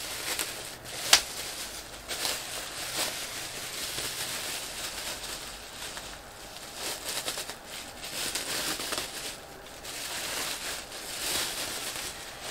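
Plastic bubble wrap being crinkled and pulled off a package by hand, with an uneven run of crackles and a sharp snap about a second in.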